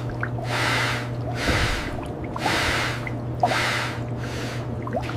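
Heavy, rhythmic breathing, a loud breath roughly every second and a half, over a steady low hum that cuts off near the end.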